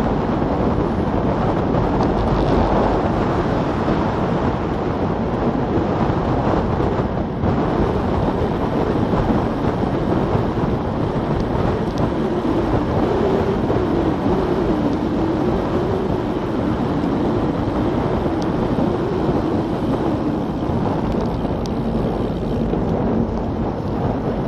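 Steady wind noise buffeting an action camera's microphone on a bicycle riding downhill at speed.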